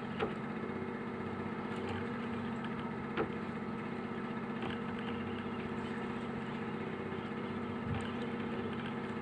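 A small engine running steadily at idle, giving an even hum, with three faint clicks over it.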